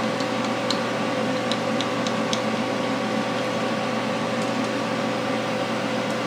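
Steady electric fan hum, with a few faint metallic clicks in the first couple of seconds as a screw is fitted to the MIG welder's side panel.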